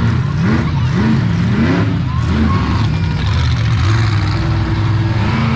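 Monster truck engines revving, with several quick rising blips of the throttle in the first couple of seconds, then running more steadily at a held pitch.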